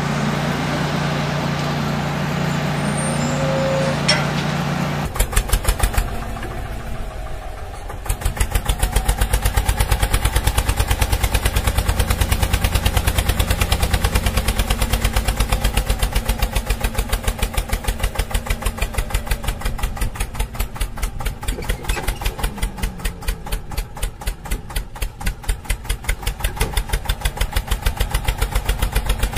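Engine sound laid over toy vehicles: a steady engine hum for about five seconds, then a tractor engine puttering in a fast, even rhythm for the rest.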